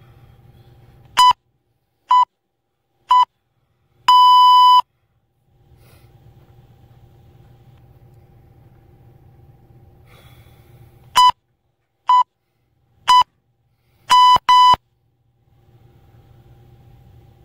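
Electronic interval timer beeping at one steady pitch. Three short beeps and a longer one mark the end of a 20-second work period. About seven seconds later, three short beeps and a quick double beep mark the start of the next round.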